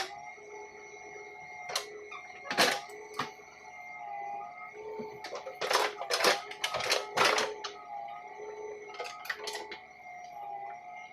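JCB Eco Xpert backhoe loader at work: repeated sharp clanks and knocks, in clusters, over a steady, slightly wavering machine whine.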